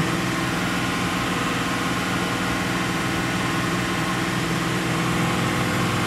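2017 Chevy SS Sedan's 6.2-litre V8 held steady at about 2,500 rpm, its stock bimodal exhaust running with the valves closed (tour mode) so only one tailpipe per side is open. The exhaust drone stays at an even pitch and level, reading about 84–85 dBA on the meter, under the 95 dBA limit.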